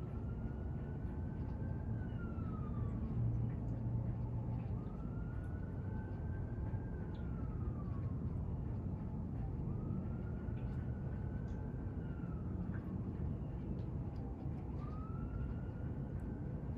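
A distant emergency-vehicle siren in a slow wail: a faint tone that climbs slowly and then falls away, repeating about every five seconds. It sits over a steady low background noise, with a few faint ticks.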